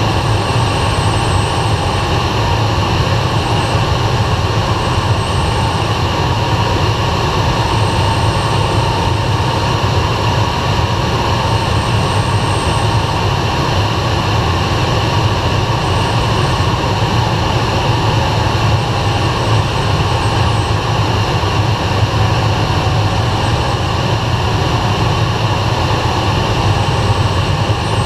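Steady rush of air and engine drone inside the cockpit of an SZD-51 Junior glider on aerotow, the tug plane's engine running ahead of it, unbroken throughout.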